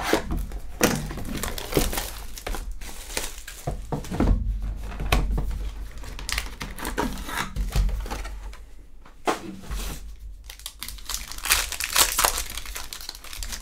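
Hands opening a cardboard Panini Prizm hobby box and tearing into a foil trading-card pack: irregular crinkling and rustling with handling knocks, the loudest crinkling near the end as the foil wrapper is torn open.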